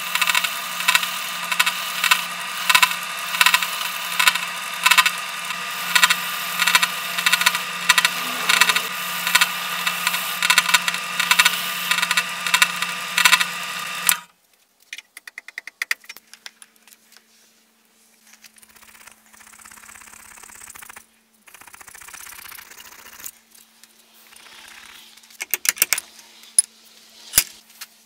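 Drill press spinning a wire wheel with a small steel part held against it: a steady motor hum under a scratching that pulses about twice a second. It cuts off suddenly about 14 seconds in, leaving faint scraping and a few sharp metallic ticks near the end.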